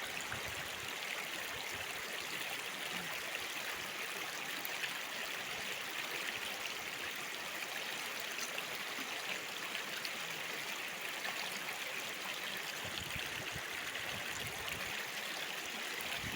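Steady rush of flowing river water, with a few soft low bumps near the end.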